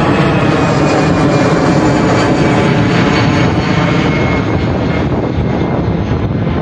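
Airliner engines running loudly and steadily, a dense roar with a faint high whine over it.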